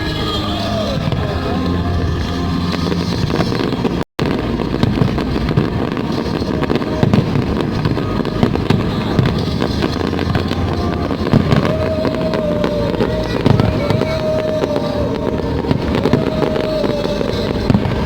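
Fireworks display: a rapid run of aerial shell bangs and crackles over accompanying music, with a brief dropout in the sound about four seconds in.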